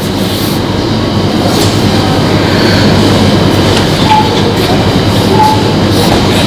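A loud, steady rattling rumble, like wheels rolling over a hard floor, with two short high beeps in the second half.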